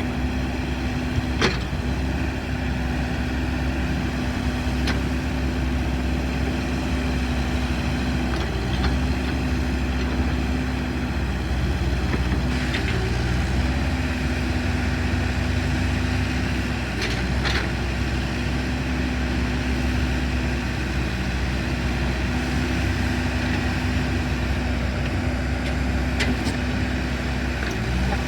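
An engine idling steadily, a constant low rumble with a hum that drops out and comes back several times, and a few faint clicks.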